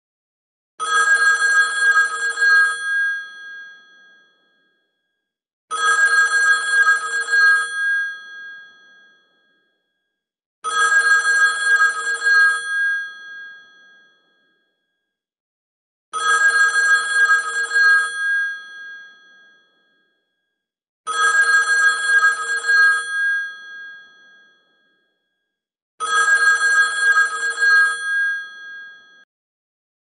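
Old telephone's bell ringing: six rings of about two seconds each, coming roughly every five seconds, each fading away after the ring stops.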